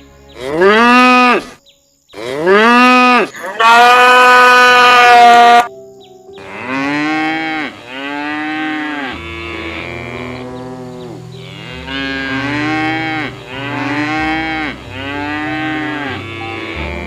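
Animal calls repeated over and over, each about a second long, rising and then falling in pitch. Loud single calls come first; from about six seconds in, quieter calls from several animals overlap.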